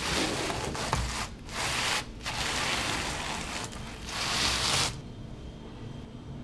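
Gloved hands rubbing and pressing a sheet flat against a surface, in four long scraping strokes with short pauses between, stopping about five seconds in.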